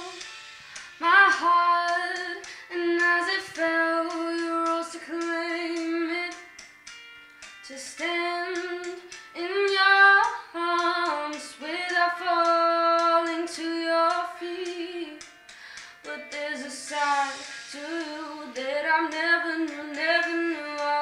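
A young woman singing solo, a slow melody in phrases of long held notes that slide between pitches, with short breaths between the phrases.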